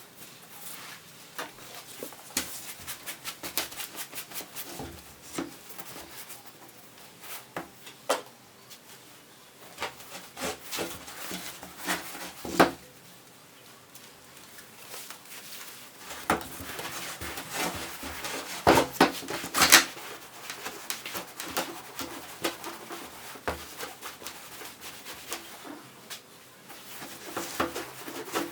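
Irregular clicks, taps and knocks of hands-on work, with two louder knocks about twelve and a half and nearly twenty seconds in.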